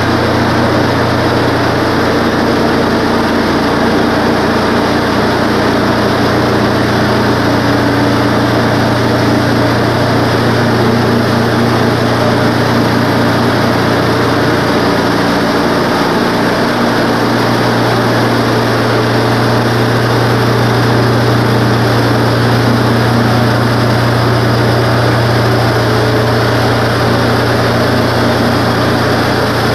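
Wood-Mizer LT15 bandsaw mill running steadily under load, its engine and band blade sawing lengthwise through a pine log as the head feeds along the track. The low engine hum shifts slightly about halfway through.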